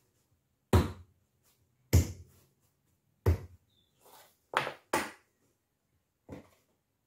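Thuds of a ball of biscuit dough being pressed and knocked down flat onto a floured table by hand: three heavy thuds about a second apart, then several lighter knocks and taps.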